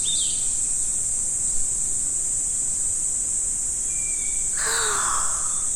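A steady, high-pitched insect chorus with a few bird chirps over it: a short chirp at the start and a thin whistle about four seconds in. Near the end comes a brief rushing burst of noise with a falling call.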